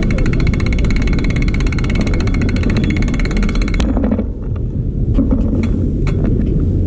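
Wind buffeting the microphone: a loud, steady low rumble. Over it, rapid, even ticking runs until it stops abruptly about four seconds in, followed by a few scattered clicks.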